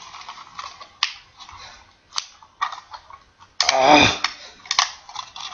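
Scattered plastic clicks and knocks of a smoke alarm's casing being handled and pried at while trying to open it to get at the battery. A short burst of a man's voice comes about two-thirds of the way through and is the loudest sound.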